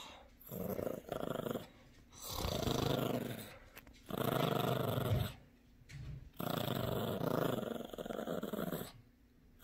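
Yorkshire terrier growling in about six bouts of different lengths with short pauses between, the longest near the end, while she holds a plush toy in her mouth: a possessive toy-guarding growl.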